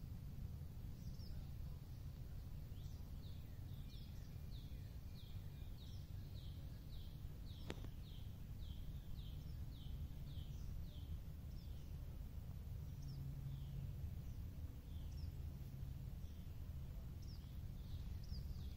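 A bird calling a run of short, high, downward-slurred notes, about two a second, which thins out to scattered single notes in the second half. Underneath is a low steady rumble, with a single click about eight seconds in.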